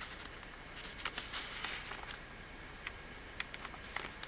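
Paper rustling and a page turning as the thick tea-dyed pages of a handmade journal are handled, with a few light clicks and taps of paper and fingers.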